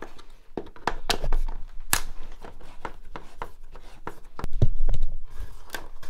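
Screwdriver turning out the screws of a door's window frame: a run of sharp clicks and creaks from the screws and frame. There are heavier low bumps about four and a half seconds in.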